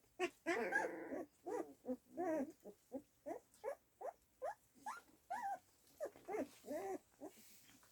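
Dog whining in a run of short, rising cries, about two a second, that stop near the end.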